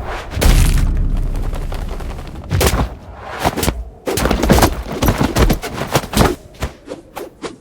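Stock impact sound effects: a heavy bang with a long low rumble about half a second in, then a fast, irregular flurry of sharp cracks and hits from about two and a half seconds on.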